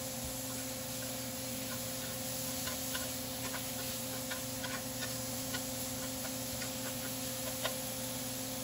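Spatula clicking and scraping irregularly against a nonstick frying pan while stirring diced pork, onion and ginger sautéing in oil, over a steady hum.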